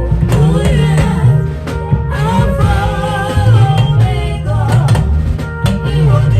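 Live gospel band playing: a heavy bass line, drum kit hits and guitar, with a voice singing a wavering melodic line through the middle.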